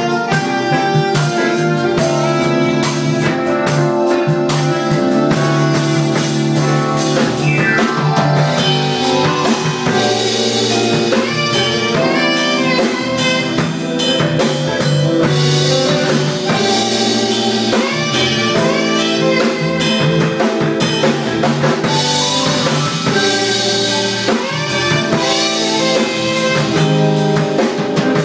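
A small band playing an instrumental groove together: drum kit, guitars, keyboards and alto saxophone.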